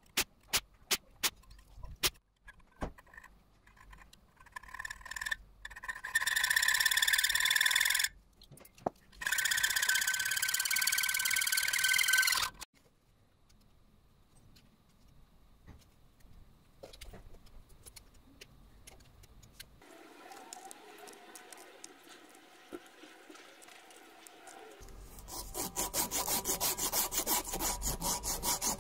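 A power drill with a gold-coloured bit bores into a small metal ring held in a bench vise. It runs twice for a few seconds each, with a steady whine, after a string of sharp clicks. Then comes faint scraping of a knife carving wood, and from near the end fast, even back-and-forth rubbing of a sanding strip on the wooden handle.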